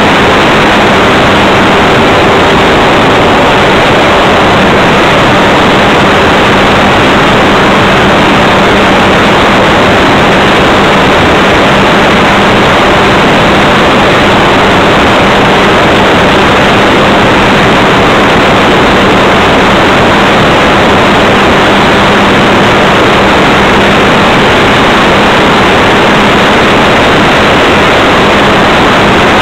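E-flite Leader RC model plane's motor and propeller with rushing airflow, heard from a camera mounted on the plane: a loud, unchanging noise with a constant hum under it.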